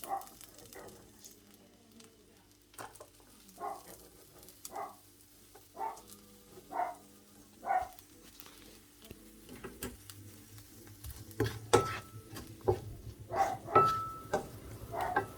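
Cabbage and spring onion sizzling in a frying pan as they are stirred. There are short scraping strokes about once a second at first, then busier clattering strokes over a steady low rumble in the second half.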